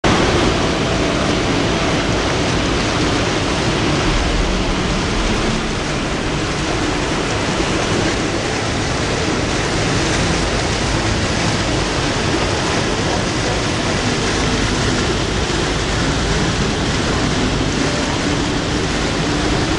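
Steady rushing noise of splashing water from the ride lagoon's churning water and fountain jets, even and unbroken, with a low rumble underneath.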